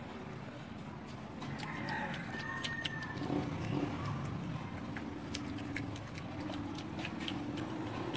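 Small clicks and clinks of fingers and food against a stainless steel bowl while eating, with a rooster crowing in the background.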